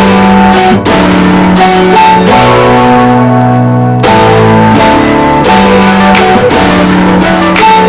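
Loud background music led by guitar, with a crisp ticking beat coming in about five and a half seconds in.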